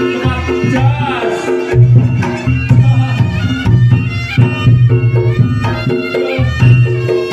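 Reog Ponorogo gamelan accompaniment playing at a steady beat: a reedy slompret shawm melody over drums and evenly repeated struck gong notes.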